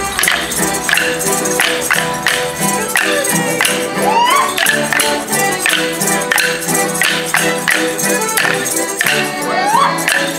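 Border morris band playing a lively dance tune with a steady, strongly marked beat, sharp percussive strokes falling on the beat. Twice a short rising whoop cuts through the music.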